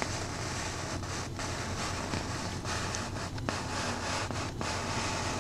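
Steady background hiss with a low hum underneath, and no distinct events.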